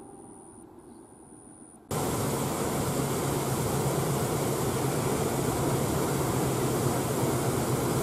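Steady rushing of a shallow river running over rocks, starting abruptly about two seconds in after a faint fading tail, with a steady low hum under it.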